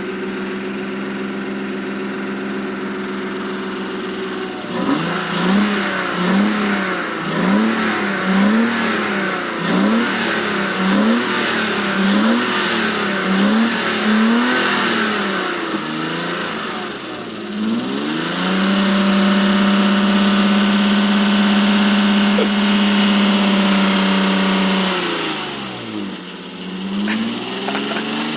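BMW E36 engine idling, then revved in quick repeated blips about once a second, then held at high revs for about six seconds before dropping back to idle. The engine has a noisy lifter, which Seafoam was added to quiet.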